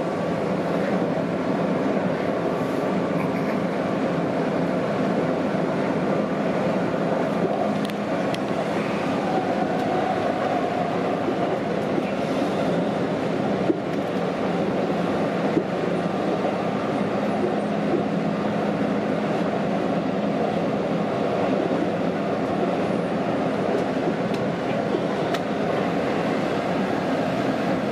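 Keihan electric commuter train running at speed, heard from inside the front car behind the driver's cab: a steady rumble of wheels on rail with a faint motor hum and a couple of brief clicks from the track.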